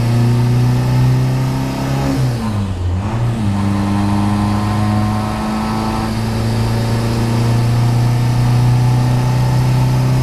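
The 1984 VW Rabbit's four-cylinder turbodiesel running under way, heard from inside the cabin: a steady engine drone with a brief dip in pitch about two to three seconds in, then holding steady.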